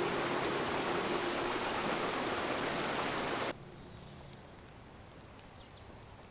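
A stream rushing over rocks, a steady hiss that cuts off abruptly a few seconds in. Faint open-air quiet follows, with a few short high bird chirps.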